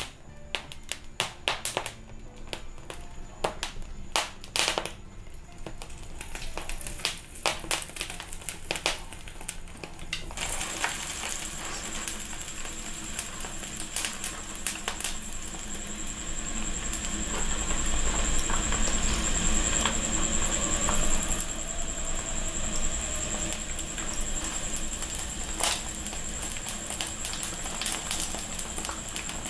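Hot pork lard poured over a roasted pork belly, the skin sizzling and crackling steadily as it puffs up into pururuca crackling. Before that, for about the first ten seconds, sharp separate pops and crackles at the wood-burning stove.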